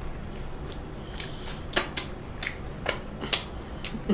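Mealtime table noises: a handful of short, sharp clicks and clinks while eating, starting about a second in and coming every half second or so.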